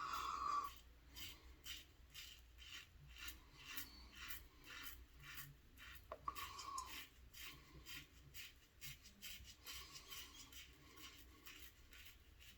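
Gillette Red Tip safety razor with a Kai blade scraping through lathered stubble in short, faint strokes, shaving against the grain.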